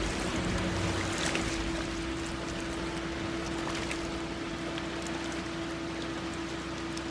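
A steady rush of water with a steady mechanical hum underneath and scattered small ticks and splashes, cutting off suddenly near the end.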